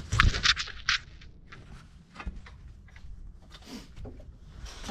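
Handling noise from gloved hands and a jacket working around the engine's belt and pulleys: a quick run of sharp rustles and scrapes in the first second, then a few faint ticks and scrapes.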